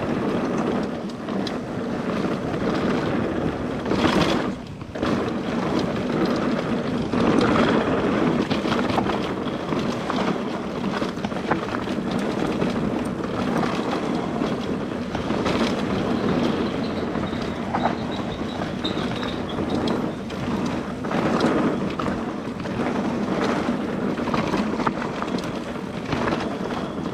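Nukeproof Mega 275 mountain bike descending a rough singletrack trail: tyres rolling over dirt with the bike rattling and clattering, and wind on the microphone. There is a brief lull about four and a half seconds in.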